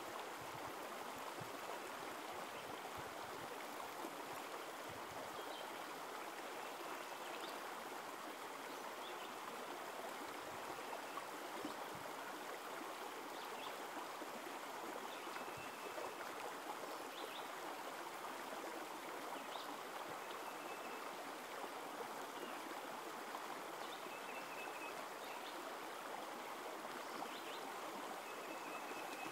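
Small creek running steadily over rocks in a shallow riffle, an even rushing of water.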